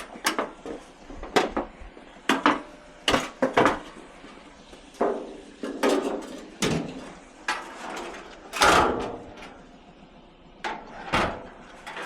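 Irregular knocks, clunks and clatters of scrap being handled and worked loose by hand, a dozen or so separate hits spread unevenly, the loudest about eight and a half seconds in.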